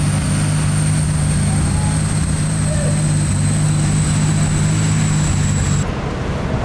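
A steady, loud mechanical hum with a faint high whine above it, cutting off suddenly about six seconds in.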